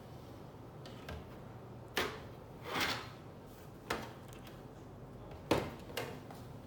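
Hands working on a Dell OptiPlex 7440 all-in-one computer: a handful of separate sharp clicks and knocks of its parts being handled, the loudest near the end, with a short scrape in between.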